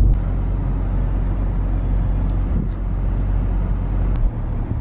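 Steady low rumble of a car's engine and tyres heard from inside the cabin while driving, with two faint clicks, one at the start and one near the end.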